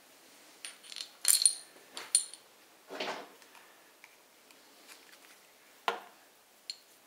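Steel connecting-rod cap, its bolts and a small hand tool clinking together as they are handled: a cluster of light metallic clinks with a brief ring in the first two and a half seconds, then a single sharp click near the six-second mark.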